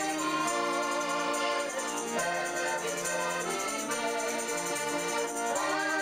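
Chromatic button accordion playing a folk tune in sustained chords, with a woman singing along.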